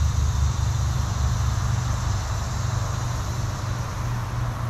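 A steady low mechanical hum under a constant hiss, unchanging throughout.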